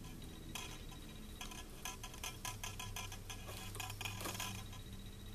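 Light irregular metallic clicks and ticks of a hand tool pressing and bending a bundle of bare wire, several a second.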